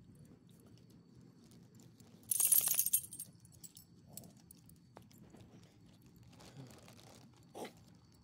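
A brief metallic jingle of a small dog's collar and leash hardware, lasting about a second, about two seconds in, with a few faint crunches and ticks around it.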